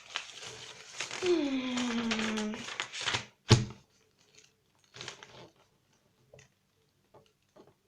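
Crinkling and rustling of a desk fan's cardboard and plastic packaging as its parts are handled, with a drawn-out falling tone about a second in. A single sharp knock comes near the middle, then a few faint clicks as pieces are set down.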